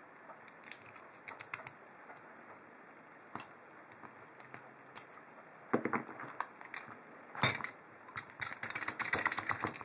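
Small metal clicks and clacks from handling a steel padlock and its lock cylinder, sparse at first, then a quick run of clicking in the last couple of seconds.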